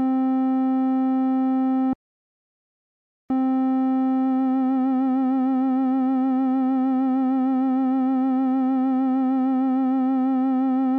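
Arturia OP-Xa V software synthesizer playing a single held note. The note stops about two seconds in and is struck again on the same pitch a second later. About a second after that, vibrato comes in and the pitch wobbles steadily.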